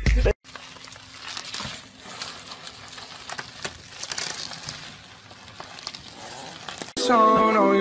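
Plastic bubble wrap crinkling and rustling as a small dog wriggles inside it, with scattered small clicks. Music with held melodic notes comes in loudly near the end.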